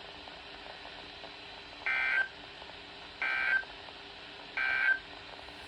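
Three short bursts of EAS SAME digital data tones from NOAA Weather Radio, each under half a second and about 1.3 s apart: the end-of-message code that closes the severe thunderstorm warning.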